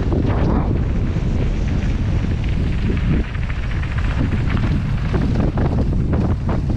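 Wind buffeting a helmet-mounted camera's microphone on a fast mountain-bike descent, with scattered crunching and rattling from tyres on a loose gravel trail.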